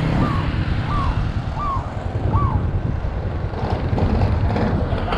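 Motorbike riding along a road: engine rumble with wind noise on the microphone. Four short, evenly spaced rising-and-falling chirps sound over it in the first half, and a rougher hiss builds near the end.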